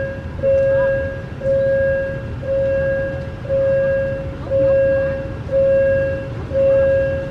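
Level-crossing warning alarm sounding a steady tone that repeats about once a second, with a low rumble beneath it.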